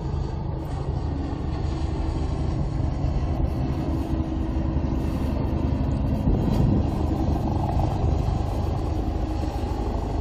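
Steady low rumble of wind buffeting the microphone, mixed with the even hum of a boat engine.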